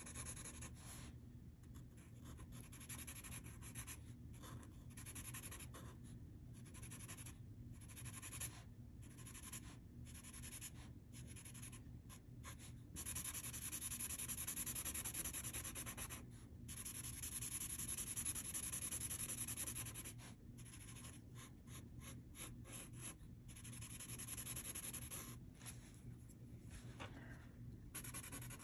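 Sharpie fine-point felt-tip marker rubbing across paper in many short coloring strokes with brief pauses between them, with two longer, louder stretches of steady stroking in the middle.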